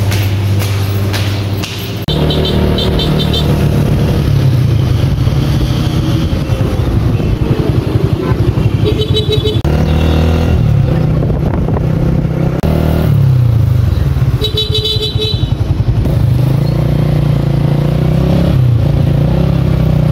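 A motor vehicle's engine running underneath, heard from on board while riding through city traffic, its pitch rising and falling with speed. Horns beep in short rapid bursts three times: about two seconds in, about nine seconds in, and about fifteen seconds in.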